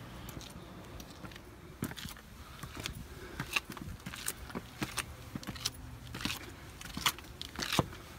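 Footsteps climbing stone steps strewn with loose gravel: irregular scuffs and crunches of shoes on stone and grit.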